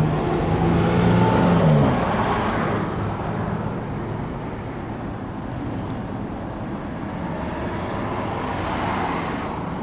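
A motor vehicle passing on a nearby road, its engine tone dropping in pitch as it goes by, then steady traffic noise with a short knock about six seconds in.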